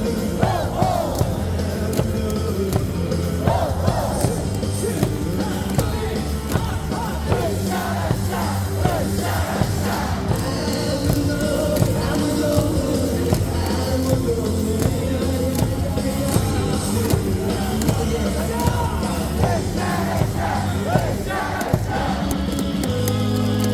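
Cheer music over a baseball stadium's loudspeakers with a steady beat, and a large crowd singing and chanting along.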